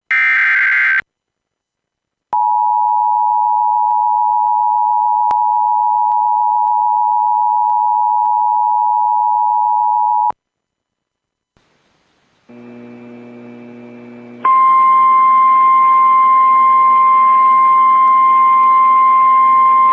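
A brief screechy burst of the EAS digital header, then the two-tone Emergency Alert System attention signal, held steady for about eight seconds and cut off sharply. After a pause a faint hum comes in, and about two-thirds of the way through a single steady NOAA Weather Radio warning alarm tone starts over radio static.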